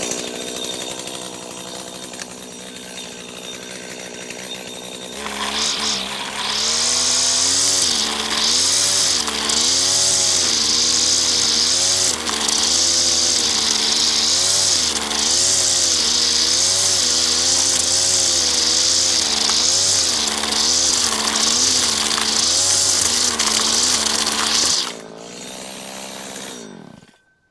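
Stihl FS85 two-stroke strimmer idling, then opened up about five seconds in and run hard for some twenty seconds, its engine pitch rising and falling again and again as it cuts grass. Near the end it drops back to idle and winds down to a stop.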